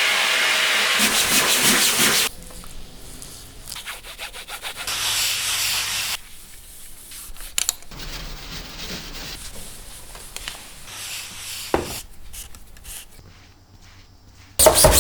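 Printmaking tools rubbing and scraping on a plate or paper, in edited snippets. A loud, steady rushing noise cuts off about two seconds in. It gives way to quieter rubbing strokes with a couple of sharp clicks, and a loud burst comes just before the end.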